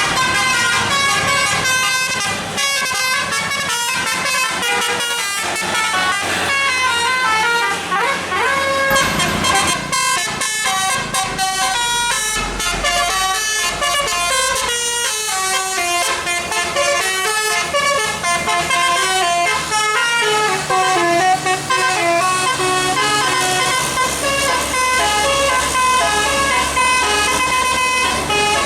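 Bus telolet musical air horn of the Basuri type, blown through roof-mounted horn trumpets, playing a fast tune of quick stepped notes that runs on without a break.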